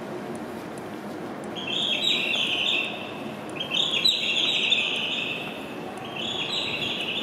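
E2 series Shinkansen train pulling slowly into the platform over a low steady rumble. Three high-pitched squeals come from it, each about one to two seconds long, the second the loudest, as it slows to a stop.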